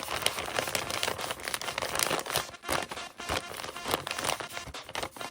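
Paper crinkling and rustling as a handmade paper blind bag is handled, a dense run of small crackles and snaps.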